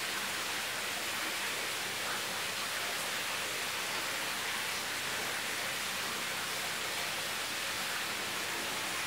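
Pancake batter sizzling steadily in a buttered non-stick frying pan on low heat, the bubbling sound that shows the pancake is ready to be turned.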